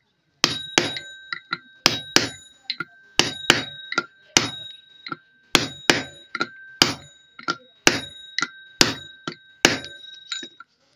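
Hammer tapping a steel cam pinion gear down onto an engine camshaft: about twenty sharp metallic blows, roughly three a second, each leaving the gear ringing briefly at a steady pitch.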